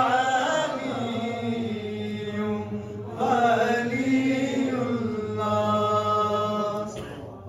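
A man's voice chanting in long drawn-out held notes over a microphone, one phrase fading, a new one starting about three seconds in, and a last steady held note that dies away near the end.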